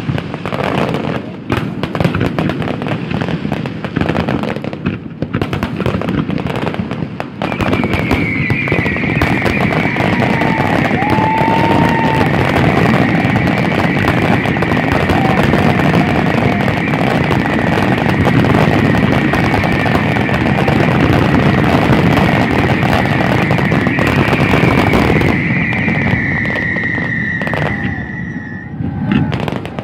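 Fireworks display: separate bangs and crackles at first, then about seven seconds in a dense, continuous barrage of explosions and crackling that runs for some twenty seconds before thinning out near the end. A steady high whistle sits over the barrage.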